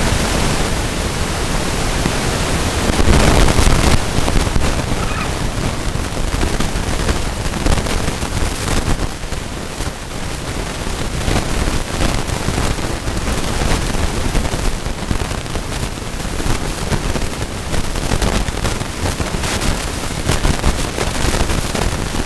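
Loud rushing noise, heaviest at the low end. It swells about three seconds in and flutters unevenly in the second half. No clucking or crowing stands out above it.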